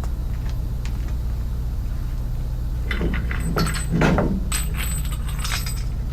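A cluster of metallic clinks and clanks in the middle of a truck tyre change, some ringing briefly, over a steady low engine drone.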